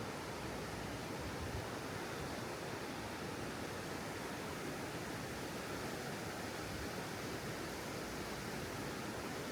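Steady rushing of fast-flowing water, an even unbroken roar with no change in level.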